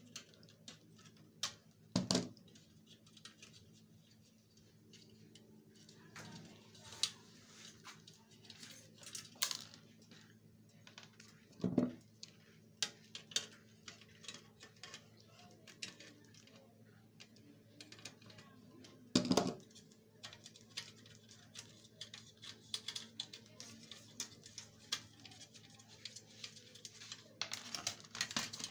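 Pliers and the plastic and metal parts of a flat-panel monitor clicking, tapping and knocking as it is taken apart, with a few louder knocks spread through, over a faint steady hum.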